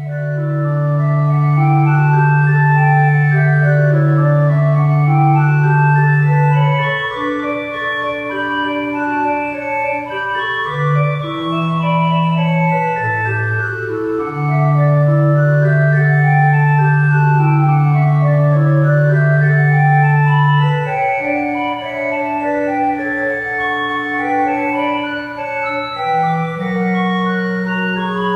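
Organ music: flowing runs of notes rising and falling over long held bass notes.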